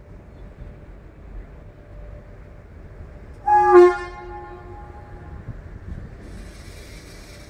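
Train horn sounding one short blast about halfway through, over the steady rumble of a moving freight train. A faint hiss comes in near the end.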